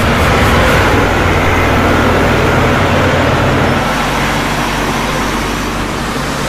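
Heavy machinery engines running steadily with a dense mechanical rumble, as in mining or digging work; a low hum drops away about four seconds in.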